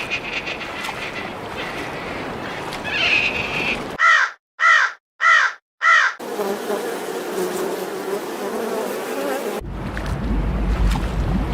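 Animal sound recordings cut one after another: first a buzzing over background noise, then four short, loud calls, each rising and falling in pitch, about half a second apart, then a steadier droning call, and near the end a low rushing noise.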